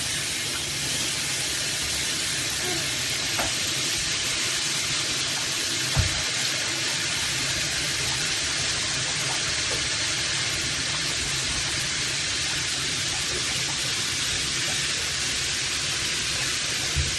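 Water spraying steadily from a running LED handheld shower head, an even hiss with no change in level. A single brief low thump sounds about six seconds in.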